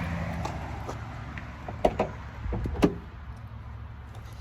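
A vehicle engine idling with a steady low hum that fades late on, and a few sharp clicks and knocks about two seconds in, like a car door or latch being handled.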